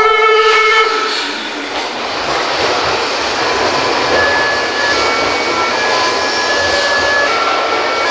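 The last notes of a Meitetsu 1000 series Panorama Super's musical horn ending about a second in. Then the running noise of a train in the underground station, with high steady tones that change pitch every second or so.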